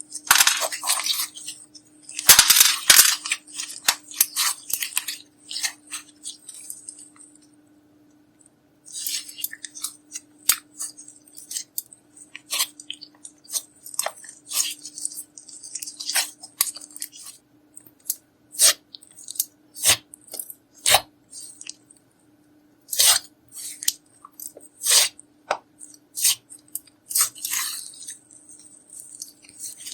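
Clear slime being squished, stretched and pressed, giving irregular sticky clicks, crackles and air-bubble pops, denser in spells and sparse in others.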